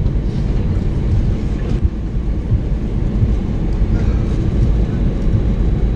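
Cabin noise inside an Airbus A321: a steady, loud low rumble of the engines and airframe.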